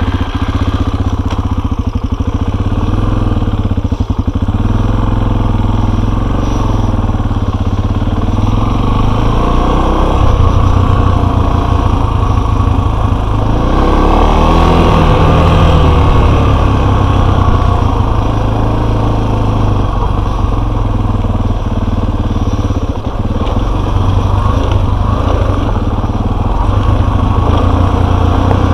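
Enduro motorcycle engine running under way, loud and steady, its pitch rising and falling a few times around the middle as the rider works the throttle.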